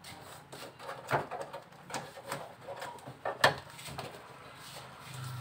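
Hands pressing and smoothing foil-faced heat insulation onto the underside of a car bonnet: irregular crinkles, rubs and taps, the sharpest about three and a half seconds in, over a faint low steady hum.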